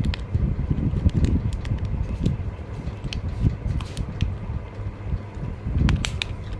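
Plastic Kinder Joy cup and its foil lid being handled, giving scattered crinkles and clicks, several close together about six seconds in, over a low, uneven rumble.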